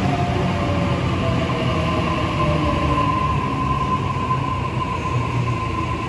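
A Sydney Trains Tangara double-deck electric train running past the platform: a steady rumble of wheels on rail under a high electric whine that holds near one pitch, with a lower tone sliding down over the first few seconds.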